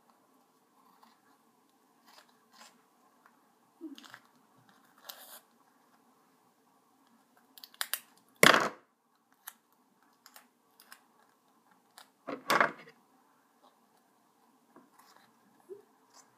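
Scissors cutting a small piece of craft material, with scattered quiet snips and clicks. Two much louder, sharper cuts come about eight and a half and twelve and a half seconds in.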